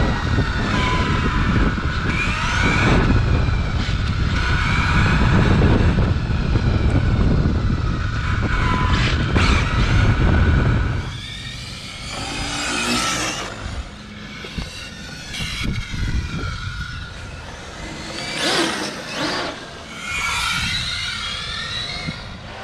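Onboard audio from a 1/8-scale electric RC on-road car on a 6S LiPo: its brushless motor and drivetrain whine rises and falls with the throttle over a heavy rumble of tyres and wind on asphalt. About eleven seconds in the sound drops to a quieter scene, where RC cars' motor whine swells and fades as they pass by several times.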